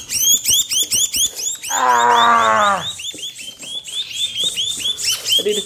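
Young songbirds chirping fast and repeatedly, about five short falling chirps a second. About two seconds in, a loud, drawn-out low cry lasts about a second and drops in pitch at the end.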